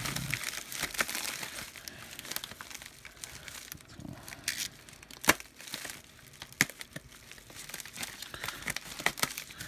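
A FedEx shipping package being handled and opened by hand: irregular crinkling and tearing of the packaging, with scattered sharp crackles and clicks.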